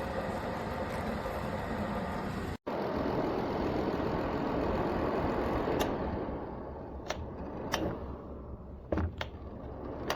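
Rintuf 1500 W PTC ceramic space heater's fan running steadily. There is a brief dropout about two and a half seconds in, then the fan noise tapers off over the second half, with several sharp clicks.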